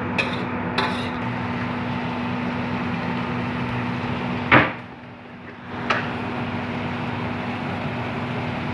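Stir-frying in a steel wok: a steady hiss with a low hum under it, broken by a few sharp knocks of the metal spatula against the wok, the loudest a little over four seconds in. The background noise drops away for about a second just after that knock.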